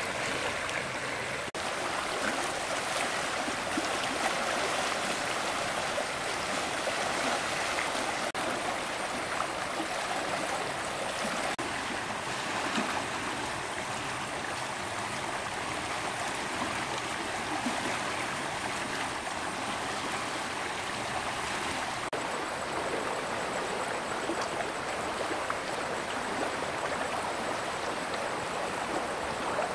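Steady rush of a flowing stream, an even wash of water noise that holds through a few brief breaks.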